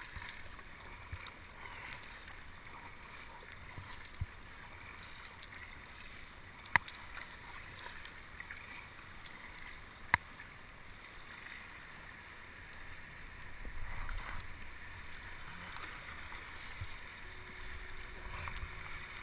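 Kayak moving on water: steady splashing and water movement around the hull, with three sharp knocks about four, seven and ten seconds in, and a louder stretch of splashing about two-thirds of the way through.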